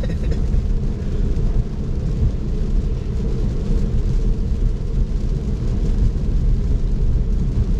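Steady low rumble of tyre and road noise with rain, heard inside the cabin of a Tesla driving at about 40 mph on a wet road.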